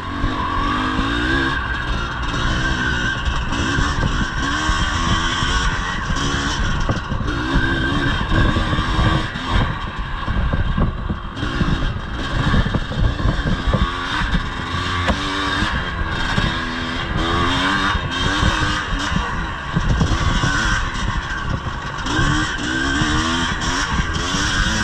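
1983 Yamaha IT 250's two-stroke single-cylinder engine being ridden hard off-road, its pitch rising and falling over and over as the throttle is opened and shut, with frequent short knocks throughout.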